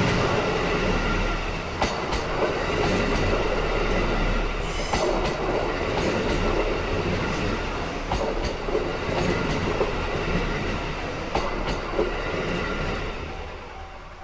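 Steam-hauled passenger train rolling past: a steady rumble with wheels clacking over rail joints. It fades as the train draws away near the end.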